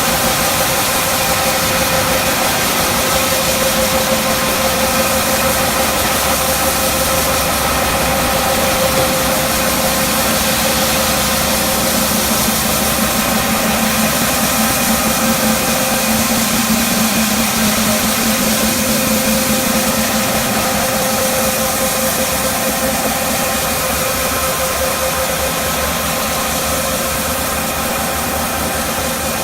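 Celery washing machine running: a steady machine hum with several constant tones over a continuous hiss.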